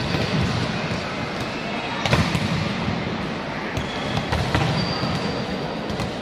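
Volleyballs being hit and bouncing on a wooden court floor in a large echoing sports hall, a few sharp smacks with the loudest about two seconds in, over a busy background din.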